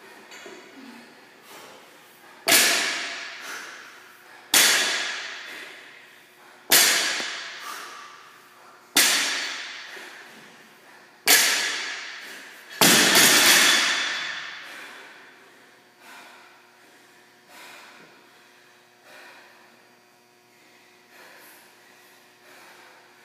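Loaded barbell with rubber bumper plates hitting a rubber gym floor on each deadlift rep: six loud thuds about two seconds apart, each with a rattling ring that dies away, then only a few faint knocks.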